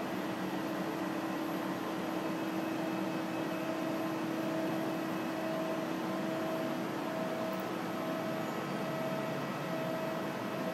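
Steady hum of machine-shop equipment, an even whir with a low steady tone and a higher tone that cuts in and out.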